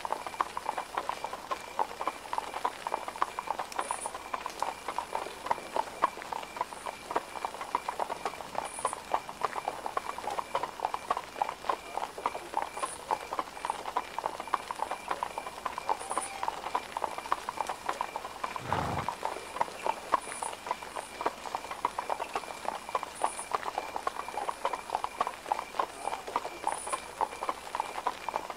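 Horse hooves clip-clopping steadily in a rapid, continuous patter of knocks, with one deep thud about two-thirds of the way through.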